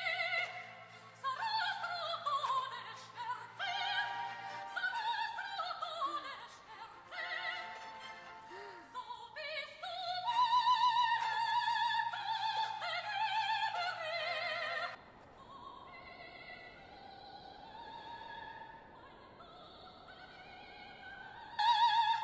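Operatic singing with orchestral accompaniment: a high voice with wide vibrato, falling to a softer passage about two-thirds of the way through and coming back loud near the end.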